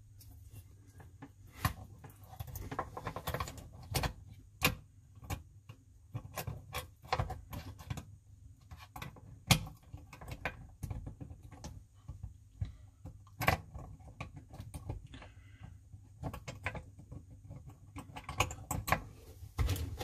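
Irregular clicking, tapping and knocking of small metal and plastic parts as a dishwasher's chopper blade and mesh filter screen are worked by hand onto the pump shaft in the plastic sump. One sharper knock comes about halfway through.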